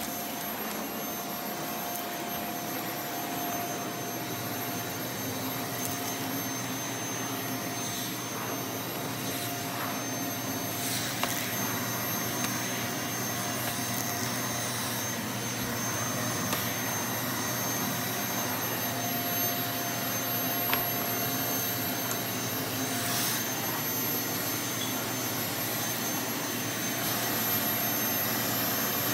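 Canister vacuum cleaner running steadily as its wand is worked over carpet: an even rushing of air with a steady motor whine and a few faint clicks.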